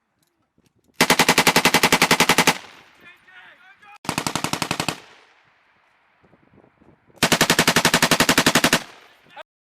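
An M240B 7.62 mm medium machine gun firing three bursts of rapid automatic fire, the first and last about a second and a half long and the middle one about a second, each followed by a fading echo.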